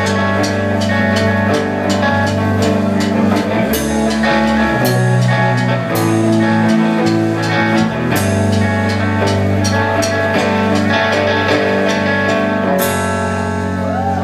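Live rock band playing: electric guitar and electric bass holding loud chords over a drum kit, with several cymbal crashes.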